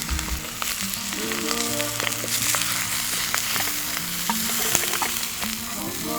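Food sizzling and spitting as it fries in a pan, with a steady hiss and many small pops.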